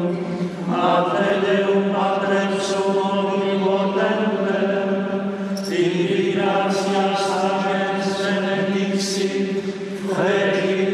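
Male voices of monks and clergy chanting plainchant together, holding long steady notes, with new phrases starting about a second in, around six seconds in and near the end.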